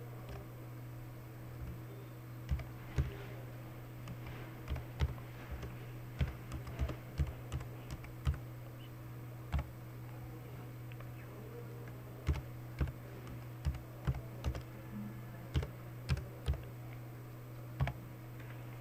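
Computer keyboard being typed on in irregular runs of keystrokes with short pauses between, over a steady low hum.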